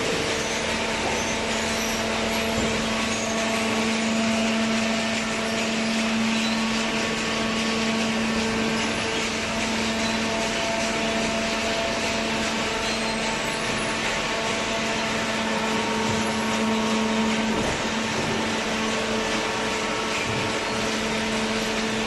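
Hydraulic cardboard baler's electric motor and pump running, a steady hum with a constant whine that does not change in level.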